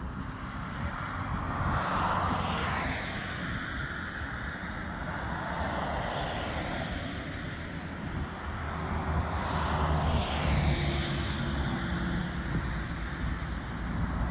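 Fokker 50 twin turboprop heard at a distance: a steady engine and propeller drone that swells twice, with faint high tones sweeping down in pitch as it passes.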